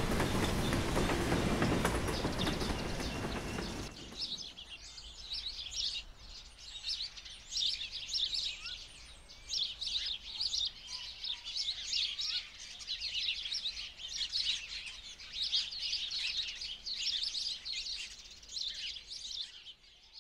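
A train running on the rails, ending abruptly about four seconds in, then a lively stretch of many sparrows chirping and twittering.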